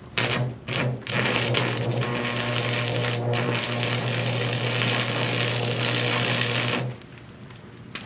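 Stick (arc) welding on a steel pipe gate: the arc is struck twice in short bursts, then runs as a steady crackling sizzle over a low electrical hum for about six seconds before cutting off suddenly as the weld is finished.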